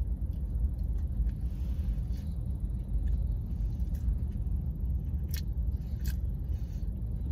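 Steady low rumble inside the cabin of an idling car, with a few faint mouth clicks from chewing a bite of donut, the last two a little after five and six seconds in.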